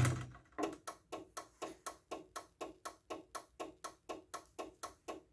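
Steelcraft/Chamberlain garage door opener answering a close command with one sharp click, then clicking rapidly and evenly, about four times a second, until it stops near the end. This is the opener's response to its safety sensors being tripped, which here is blamed on truck exhaust.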